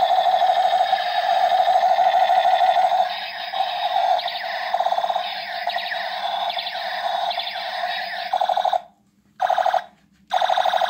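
Battery-operated light-up toy revolver's electronic sound effect from its small speaker: a steady electronic tone for about three seconds, then a run of quickly repeating rising and falling sweeps. The sound cuts out twice briefly near the end.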